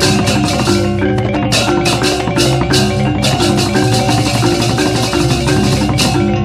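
Balinese gamelan music: ringing metal percussion playing sustained notes under a fast, dense rhythm of bright strokes.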